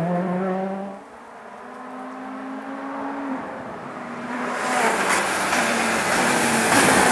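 A rally car's engine fades quickly in the first second as it drives away, leaving a faint distant engine drone. From about halfway in, a Ford Fiesta RS WRC's turbocharged 1.6-litre four-cylinder engine grows steadily louder as it approaches at speed.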